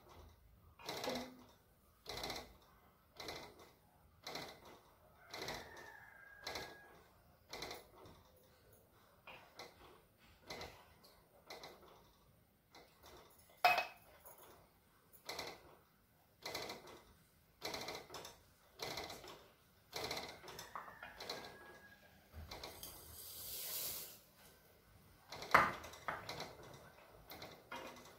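Steel ladle scraping and knocking against an aluminium pot of milk as it is stirred, about one stroke a second. Near the end there is a brief hiss and then a sharper, louder knock.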